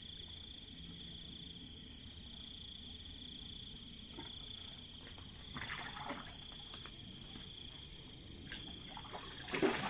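Night insects chirring in a steady high drone throughout, with a few brief rustling, splashing noises in the second half, the loudest just before the end, as a shark catfish is brought to the bank.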